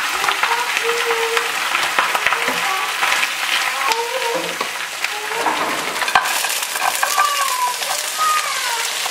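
Slices of grill kebab meat frying in oil in a nonstick pan: a steady sizzle with many small crackling pops, stirred with a spatula.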